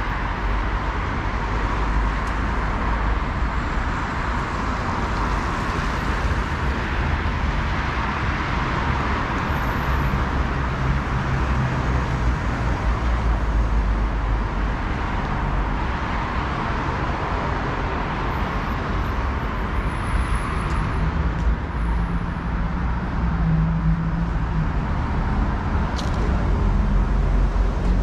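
City road traffic: a steady wash of tyre and engine noise from passing cars, swelling and easing as vehicles go by, with a deeper engine rumble near the end.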